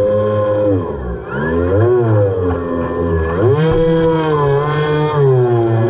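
DIY foam RC airboat's motor and air propeller running at varying throttle. The pitch drops about a second in, rises and dips again around two seconds, then climbs and holds high before easing down near the end.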